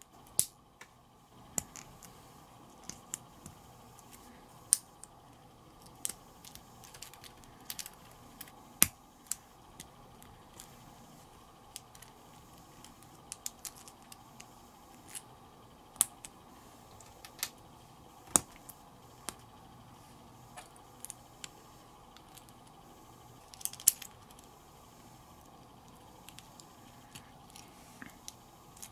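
Small plastic building bricks being handled and pressed together: scattered, irregular sharp clicks and snaps, a few much louder than the rest.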